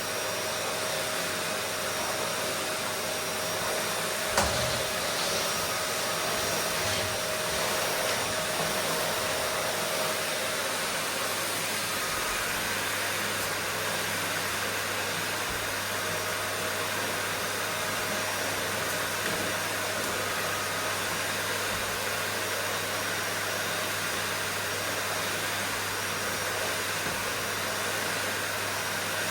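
Vacuum cleaner running steadily, an even whoosh of motor and suction with a faint steady whine for the first ten seconds. A single knock about four seconds in.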